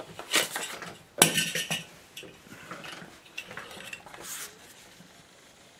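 Stiff card mount being handled and laid over a painting on a wooden easel board: a run of scrapes, rattles and knocks of card against board. The loudest is about a second in, and smaller ones follow and die away.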